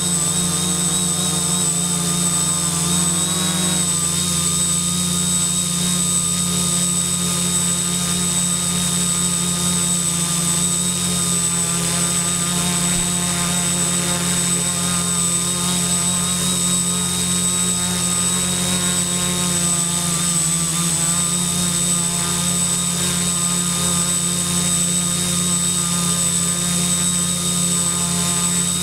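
Multirotor quadcopter's brushless motors and propellers running steadily in a hover: a loud, even buzzing hum with a thin high whine above it. The pitch wavers slightly about three seconds in and again about twenty seconds in as the motor speeds shift.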